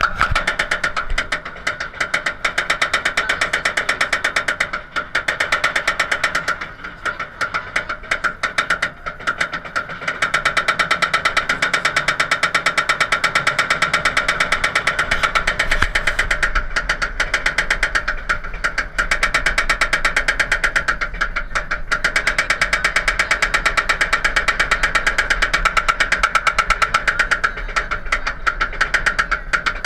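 Roller coaster chain lift hauling a train up the lift hill: a rapid, steady clatter of the lift chain and the anti-rollback dogs over a steady hum, getting louder about ten seconds in.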